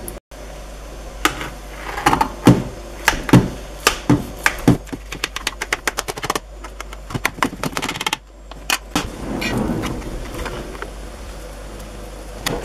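Knife cutting a chicken pie in a metal roasting tin, the blade knocking and scraping against the tin in quick irregular clicks. Later a fork scrapes and taps on a plate.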